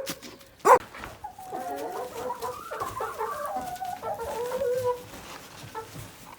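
Chickens clucking and murmuring softly with low, wavering calls, settling in the coop for the night. Two short sharp yelps come in the first second.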